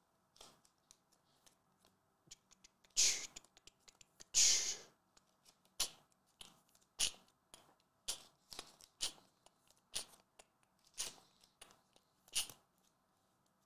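Trading cards being slid into soft plastic sleeves: a run of short crinkly plastic rustles and swishes, two longer, louder ones about three and four and a half seconds in, then brief ones about once a second.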